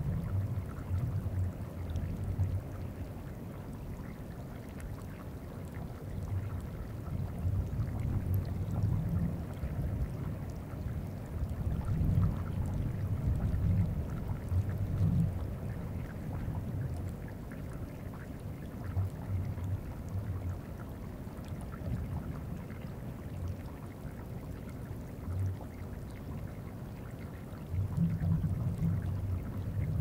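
Deep, uneven bass rumbling and bumping of glacier ice moving under the Greenland ice sheet, picked up through geophones in the ice, swelling in waves around the middle and again near the end. Under it is a faint hiss with scattered tiny ticks from the melting ice surface.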